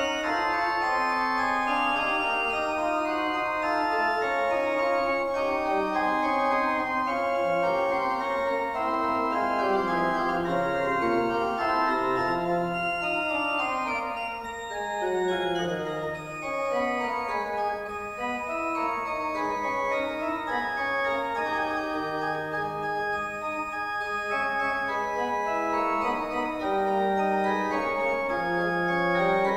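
Organ music: slow, held chords and melody lines, with a run of notes stepping downward about halfway through.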